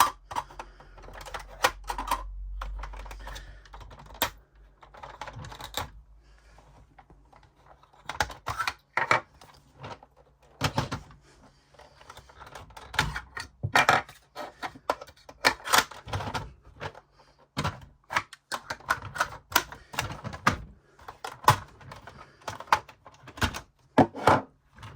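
Hard plastic toy parts clicking and knocking as they are handled and fitted together, in irregular clusters of taps with short pauses between.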